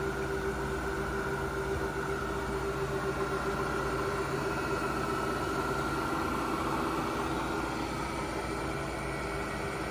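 SWI TRAK K CNC vertical milling machine running, a steady mechanical hum with a whine over it; the whine shifts slightly in pitch about two-thirds of the way in.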